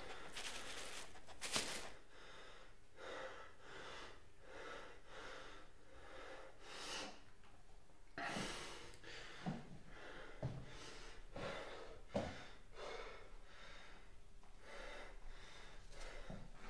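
A run of faint breaths or snorts, roughly one or two a second, with a few soft knocks about two-thirds of the way through.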